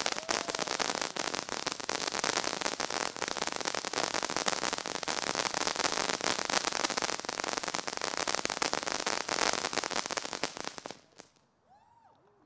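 Consumer ground-fountain firework crackling densely, a fast, unbroken stream of tiny pops and hiss, which dies away about eleven seconds in.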